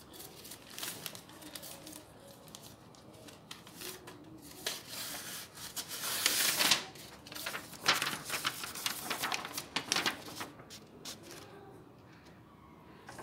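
Sheets of printer paper rustling as they are handled, with scattered light taps and clicks; the loudest rustling comes a little past halfway.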